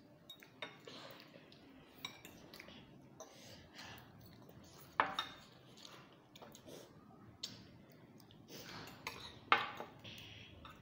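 Metal forks clinking against glass bowls and glassware knocking on a glass tabletop, in scattered sharp clinks; the two loudest come about five seconds in and again near the end.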